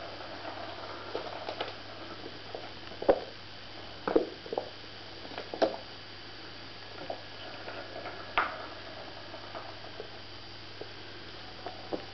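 British Shorthair kittens' paws pattering and thumping on a wooden floor as they pounce at a feather wand toy, with irregular soft knocks scattered through.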